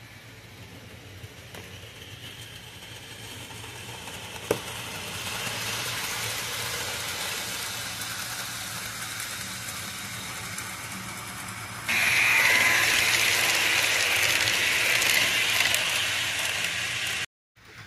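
HO scale model freight cars rolling along the track, a steady rolling noise of wheels on rails that slowly grows louder, with one sharp click about four and a half seconds in. It jumps louder, closer, about twelve seconds in, then cuts off suddenly near the end.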